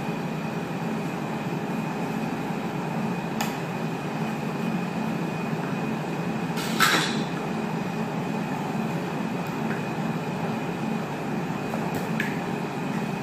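Steady machinery hum with a faint high whine, broken by a few short clicks, the loudest about seven seconds in.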